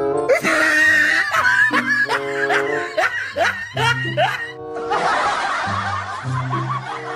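A woman laughing, in a string of short repeated breaths, for roughly the first four and a half seconds, over a light background music tune of held notes.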